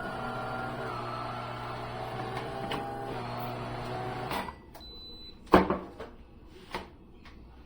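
De'Longhi Magnifica Start espresso machine running with a steady hum that stops about four seconds in. A loud click follows about a second later, then a few lighter clicks.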